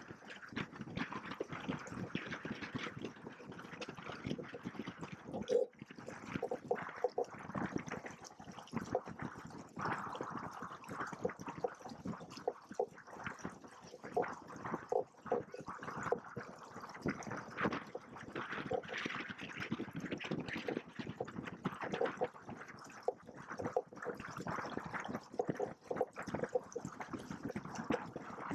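Water splashing and slapping against the hulls of a Hobie Cat 16 catamaran under way, in an uneven, choppy run of small splashes.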